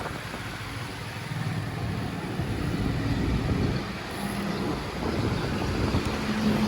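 Steady road traffic noise with a low rumble, and a faint engine hum near the end.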